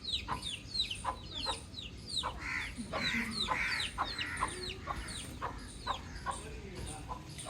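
Baby chicks peeping: a continuous run of short, high chirps that fall in pitch, several a second.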